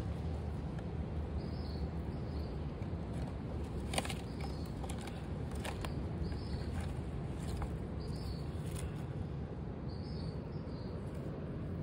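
Outdoor garden ambience: a steady low rumble with faint, repeated high chirps, and a few soft rustles and clicks, the sharpest about four seconds in, as a kitten scrambles out of a small flower pot through dry plant stems.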